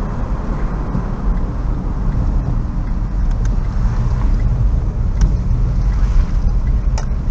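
Car driving, its steady engine and road rumble heard from inside the cabin.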